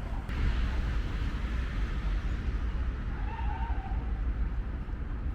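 Steady low rumble of city background noise, with a short faint high-pitched call about three seconds in.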